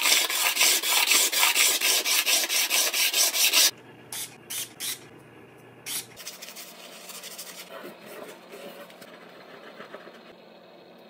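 Knife-handle pieces rubbed back and forth on a sheet of sandpaper laid flat on the bench, in quick, even strokes, to flatten their faces for gluing. The sanding stops about four seconds in, and a few single strokes follow before only faint handling noise remains.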